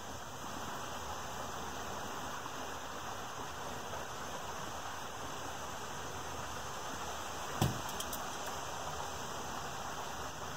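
Steady rush of a small creek running over rocks, with one brief knock about three-quarters of the way through.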